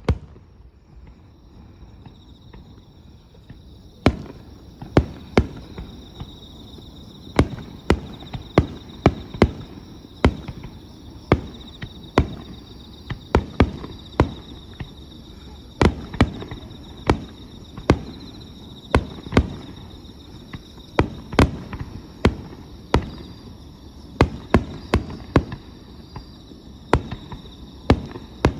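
Aerial fireworks bursting in a fast, irregular series of sharp bangs, starting about four seconds in, roughly one or two a second. Insects chirr steadily in the background.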